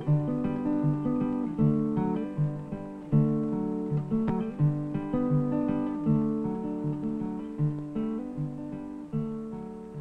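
Background music on acoustic guitar: plucked and strummed chords, each fading after it is struck, in a steady rhythm.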